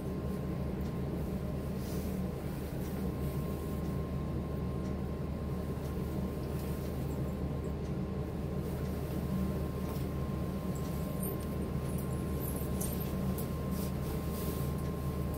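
Steady low room hum with a faint thin whine above it, and a few faint rustles about eleven to thirteen seconds in.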